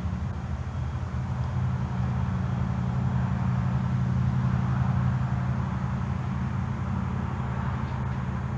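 Steady low mechanical drone of a running machine, with an even hiss above it.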